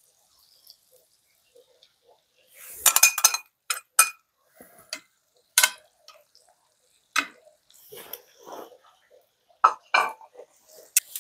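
Metal utensils clinking against dishes: a string of separate clinks, each with a short ring. A quick cluster comes about three seconds in, then single clinks at uneven gaps.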